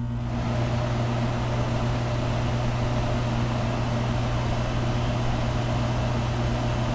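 Window air conditioner, refitted as a split unit, running just after being switched on: a steady rush of blower air that builds up over the first second, over a constant low hum.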